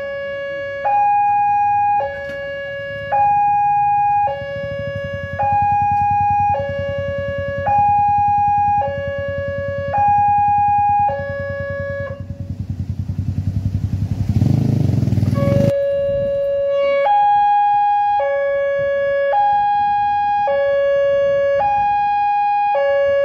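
Railway level-crossing warning siren sounding a loud two-tone hi-lo alternation, each tone about a second long, on a newly installed crossing under trial. About twelve seconds in, the siren gives way to a vehicle engine rumble that grows louder for a few seconds and then cuts off abruptly, and the two-tone siren starts again.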